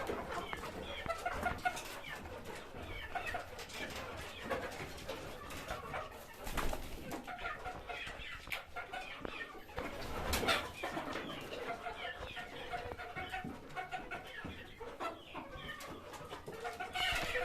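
A flock of chickens clucking and calling, many short overlapping calls, with a couple of sharp knocks partway through.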